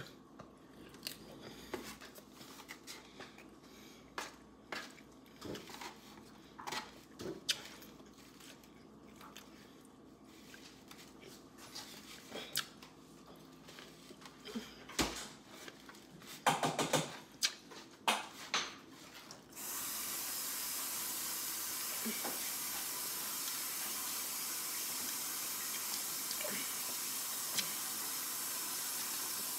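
Scattered light clicks and knocks, then a steady hiss of a water tap running that starts suddenly about two-thirds of the way in.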